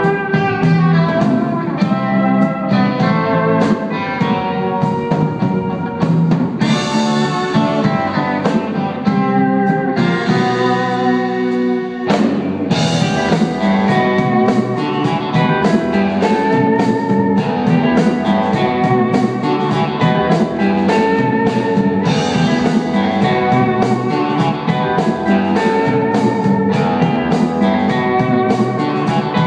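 Live instrumental band music: electric guitar and pedal steel guitar over bass and drum kit, with cymbal crashes about seven and twelve seconds in.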